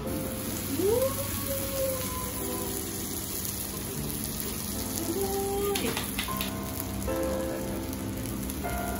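Okonomiyaki sizzling on a flat steel teppan griddle, a steady crackling hiss like rain, under background music. A short clatter comes about six seconds in.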